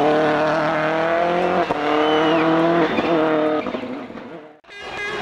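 World Rally Car engine pulling hard through the gears, its pitch climbing and dropping at three quick gearshifts, then fading away near the end.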